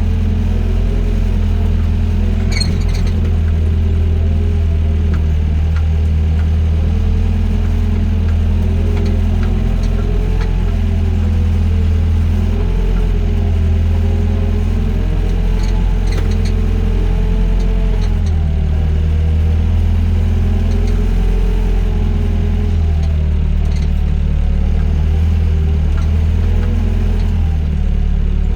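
Doosan DX55 mini excavator's diesel engine running steadily under load, its hum wavering up and down in pitch as the hydraulics work, with a few light metallic clanks, one about three seconds in and another around the middle.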